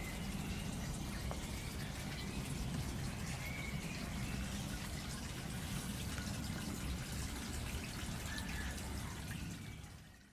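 Rain dripping and pattering on wet garden foliage, many small drips over a steady low rumble. The sound fades out near the end.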